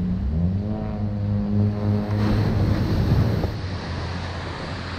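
Surf washing onto the beach with wind buffeting the microphone. A steady low hum sounds over it for the first couple of seconds, then stops.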